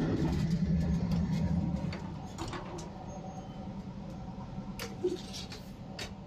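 Running noise inside an SJ X2000 train at speed: a loud low rumble for the first two seconds as the interior sliding door opens onto the coach, then a quieter steady hum with a few sharp clicks.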